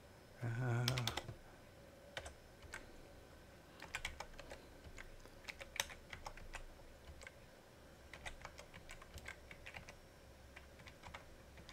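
Typing on a computer keyboard: irregular, faint key clicks as numbers are keyed in. A brief murmur of a man's voice about half a second in.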